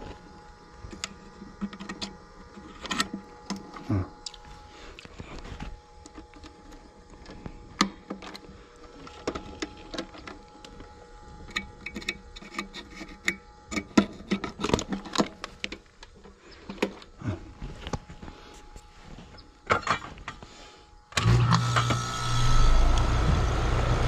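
Scattered clicks and light knocks from wires and connectors being handled at a heat pump's defrost control board. About three-quarters of the way through, the outdoor unit starts suddenly and runs with a steady low hum.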